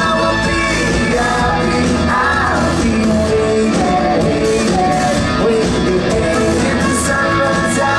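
A live rock band playing a song with singing, over acoustic and electric guitars, keyboards and drums, heard loud from within the concert crowd.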